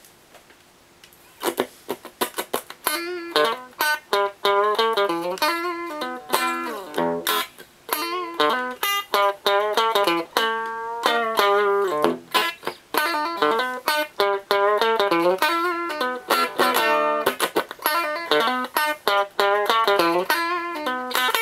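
Electric guitar played through an MTB-1E DIY tube amplifier kit with 6EB8 valves, starting about a second and a half in with quick single-note lead lines and several string bends.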